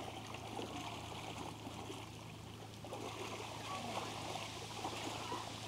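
Faint, steady trickle of running water, with a low steady hum underneath.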